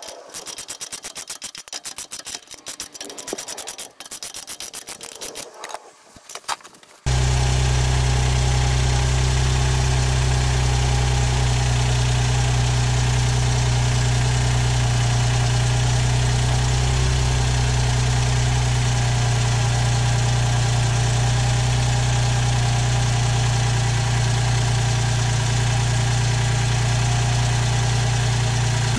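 A socket ratchet clicking in quick runs as exhaust clamp nuts are tightened. About seven seconds in, this gives way abruptly to the Mitsubishi Colt 1.1i's three-cylinder engine idling steadily, with the newly clamped exhaust center-pipe joint sealing properly.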